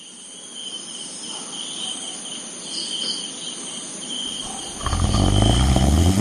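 Steady, pulsing cricket-like insect chirring that fades in at the start. About five seconds in, a loud low-pitched sound joins it and becomes the loudest thing.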